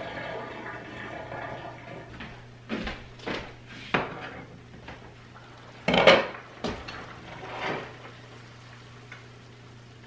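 Metal tongs and a steel pot clanking and clinking in a series of separate knocks, the loudest about six seconds in, as boiled chicken wings are lifted out of the pot.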